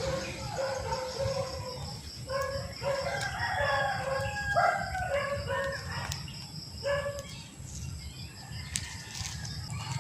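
Rooster crowing repeatedly over several seconds, with a steady low rumble underneath.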